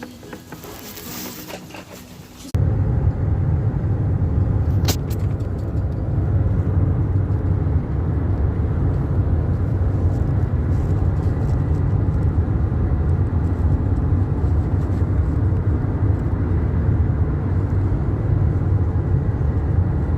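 A steady, loud low rumble that starts abruptly about two and a half seconds in, with a single sharp click about five seconds in.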